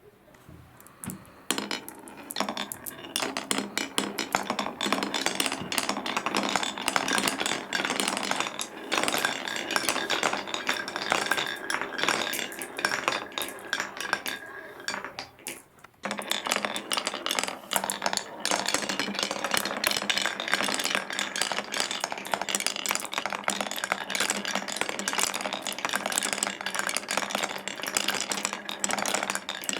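Marbles rolling and clattering down a wooden marble-run course, a busy stream of small clicks and knocks. It stops briefly about halfway through, then starts again.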